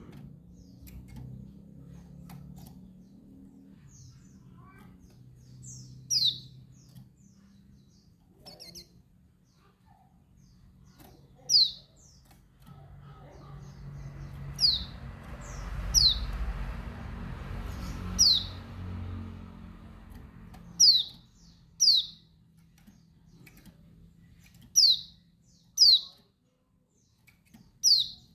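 Female white-eye (pleci dakun bali) giving her calling notes to males: single short, high chirps that sweep downward, about a dozen at uneven spacing, some in quick pairs. A faint low hum runs underneath, and a soft rushing noise swells in the middle.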